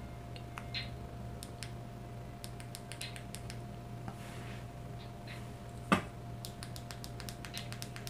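Faint, tinny sound leaking from TBI PowerPro wireless earbuds playing music at full volume. Only scattered high ticks come through, over a steady low hum, with one louder click about six seconds in.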